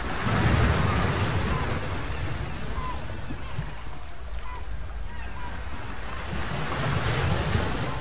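Sea wind blowing over a beach, with surf breaking on the shore. Wind gusts buffet the microphone with a low rumble, most strongly about half a second in and again near the end.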